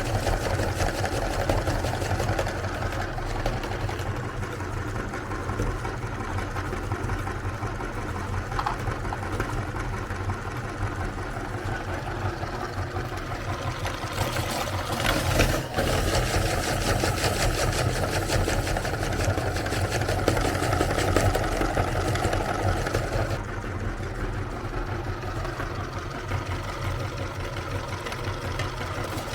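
Electric meat grinder's motor running steadily while it grinds Oreo cookies, with a rougher churning sound that comes and goes and one short knock about halfway through.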